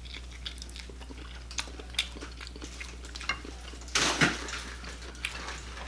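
A man eating with his hands, close-miked: scattered soft mouth clicks and finger-sucking smacks, with one louder, noisier sound about four seconds in.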